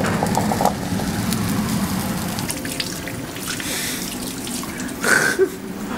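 Chopped vegetables sizzling in a frying pan over cooking onions, then a kitchen faucet running into the sink, with a short clatter about five seconds in.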